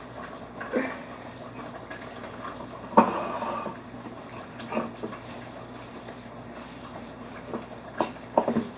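Long wooden paddle stirring and mashing thick asida dough in a steel pot, with wet sticky churning and a few knocks of wood against the pot, the loudest about three seconds in.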